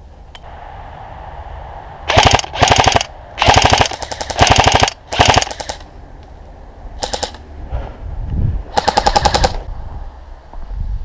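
Airsoft electric gun (AEG) firing seven short full-auto bursts, each a rapid string of shots: five in quick succession from about two seconds in, then a single burst, and a longer last burst near the end.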